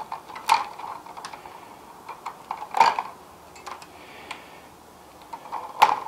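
Hand wire strippers clicking and snipping as insulation is stripped from the ends of copper wires in an electrical box. The sharp clicks are scattered, with the loudest about three seconds in and just before the end.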